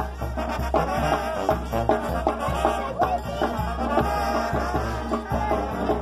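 Upbeat Latin dance music with a steady beat and a pulsing bass line.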